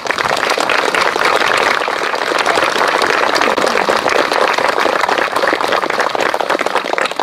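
Crowd applauding: many hands clapping steadily, beginning right after a speech ends and starting to taper off as the next speaker begins.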